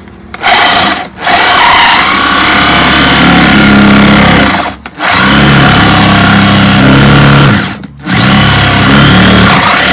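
Loud electric drill boring holes into bamboo, running steadily in long bursts. It stops briefly about a second in, near five seconds and near eight seconds.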